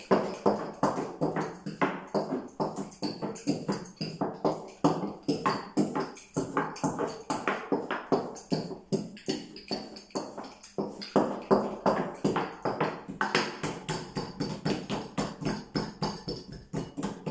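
Background music with a busy percussive beat, several sharp hits a second.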